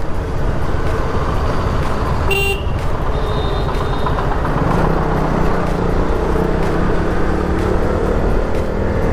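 Road traffic heard from a motorcycle riding through a city: steady engine and road noise, with a short vehicle horn toot about two and a half seconds in.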